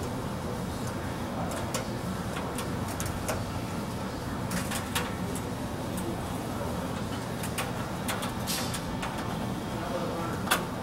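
Scattered light clicks and taps from LED strips and connectors being handled and fitted into a metal ceiling light fixture, over a steady low hum, with one sharper click near the end.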